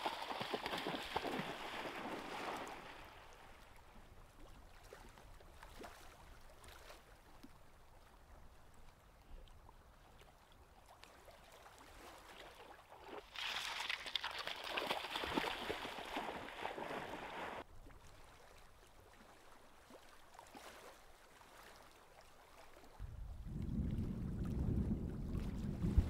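Lake water splashing and gurgling in two short stretches, each starting and stopping abruptly. Near the end a low, steady rumble sets in.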